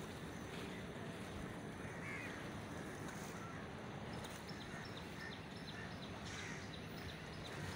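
Steady wind and choppy harbour water rushing on the microphone, with a faint run of short high chirps in the second half.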